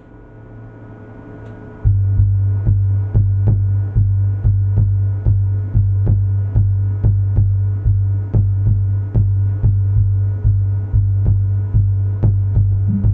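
Electronic music played on synthesizers and percussion. A low drone swells, then about two seconds in a heavy bass line and a steady drum-machine beat come in, about two to three strokes a second.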